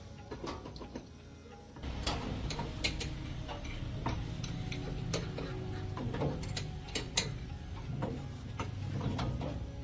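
Irregular metallic clicks and light knocks of hand tools working on truck wheel and axle parts, with a low rumble that starts about two seconds in.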